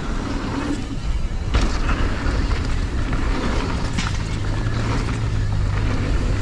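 Wind rushing over the helmet-camera microphone and mountain bike tyres rolling fast over dirt, with a sharp knock from the bike about one and a half seconds in and again near four seconds.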